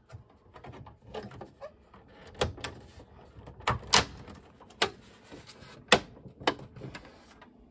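Hands pushing the Sony projector's plastic housing and the ceiling mount's metal side brackets back into place: an irregular string of sharp clicks and knocks, the loudest about four and six seconds in.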